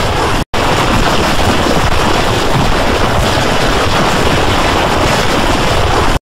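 Loud, dense distorted noise from a heavily effected logo-edit soundtrack, a harsh unbroken wash across all pitches that cuts out for an instant about half a second in.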